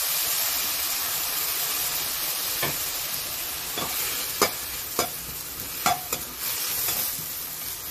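Mint and coriander leaves with green chillies sizzling in hot oil in a pan, the sizzle easing off slowly, while a metal spoon stirs them with about five short scrapes and clicks against the pan.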